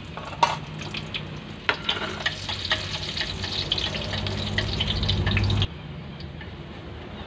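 Minced garlic sizzling and crackling in hot oil in a metal wok as it is stirred, with a few sharper clicks. The sizzle drops suddenly to a quieter level about five and a half seconds in.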